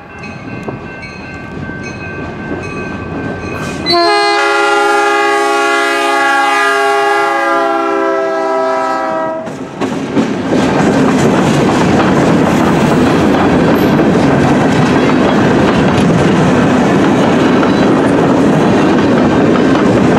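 Canadian National freight train's diesel locomotive sounding its multi-note horn as it approaches, the horn growing much louder about four seconds in and stopping near ten seconds. The locomotives and boxcars then pass close by with a steady noise of engines and wheels clattering on the rails.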